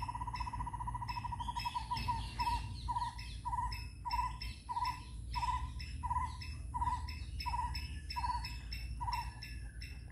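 A bird repeating one clear note over and over: a fast trill that slows within the first couple of seconds into separate notes about one and a half a second, stopping near the end. Fainter high chirps and ticks repeat behind it.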